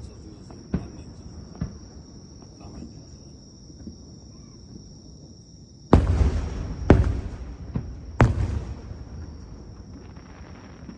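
Aerial fireworks bursting: a few faint pops near the start, then three loud booms about a second apart in the second half, each trailing off in a low rumble.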